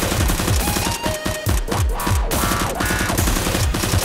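Fast action background music with rapid bursts of machine-gun-style gunfire sound effects laid over it.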